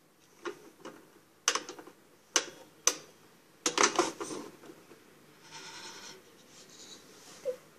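Pie Face game's handle being turned in separate clicks, then the spring-loaded plastic hand snapping up into the player's face with a loud clatter about four seconds in. A short cry follows a second and a half later.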